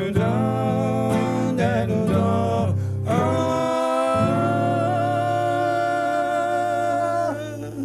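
Wordless singing over acoustic guitar accompaniment, ending in one long held note that stops shortly before the end.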